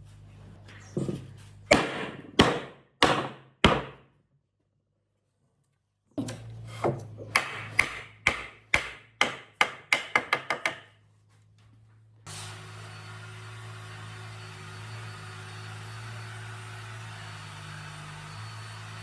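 Repeated hammer blows on wood: a run of about five strikes that speed up, then after a short break a faster run of about a dozen. After that, a steady hum with a hiss.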